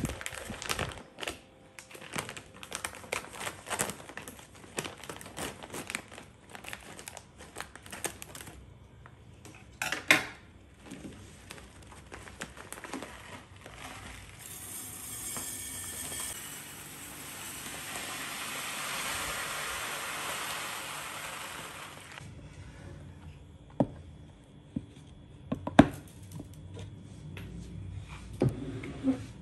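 Plastic rice bag crinkling as it is handled and opened. Then a steady hiss of rice pouring from the bag into a glass dispenser jar for about seven seconds. A few sharp knocks follow near the end.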